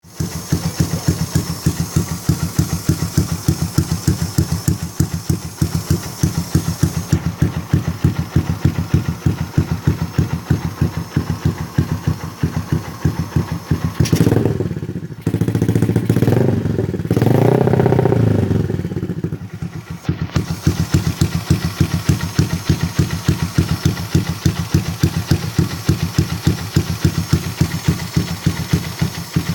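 Yamaha LC135's single-cylinder four-stroke engine idling through a GL aftermarket exhaust with an even, pulsing beat. It is revved twice between about fourteen and twenty seconds in, then drops back to idle.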